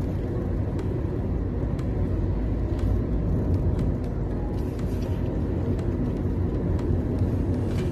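Steady low road and engine rumble of a car driving, heard from inside the cabin, with a few faint scattered clicks.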